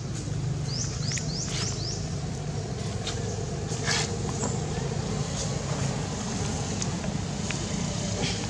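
Steady low outdoor rumble, with a bird giving a quick run of about four high chirps about a second in. A few sharp light crackles follow, the loudest about four seconds in, like dry leaves being handled.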